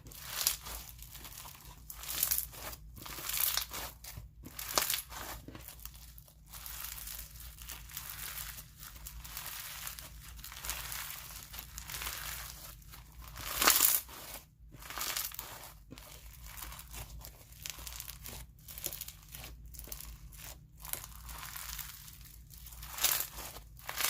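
Crunchy bingsu bead slime being squeezed, stretched and folded by hand, giving dense irregular crackling and crunching from the beads, with a louder crunch about fourteen seconds in.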